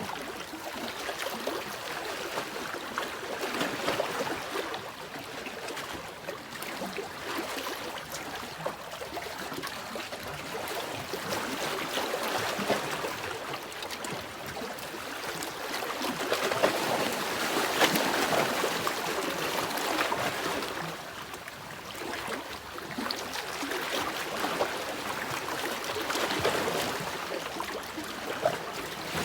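Sea waves washing in and drawing back: a continuous hiss of moving water that swells and eases every several seconds, loudest about halfway through.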